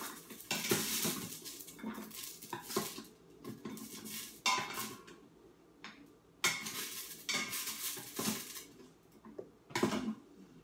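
A utensil scraping and clinking against the stainless-steel inner pot of an Instant Pot as sautéed sugar snap peas are scooped out onto a plate, in short separate bursts every second or two.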